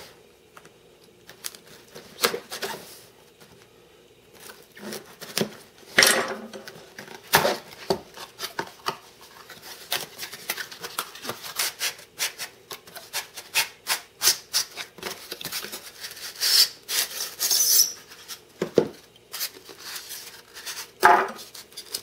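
A cardboard box being opened and unpacked by hand: flaps worked open with a knife, then the box and its packing insert rubbing and scraping as the contents are slid out, with irregular scuffs and clicks.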